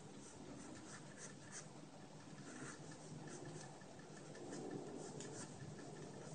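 Pencil scratching on paper in short, faint sketching strokes, with a low steady hum beneath.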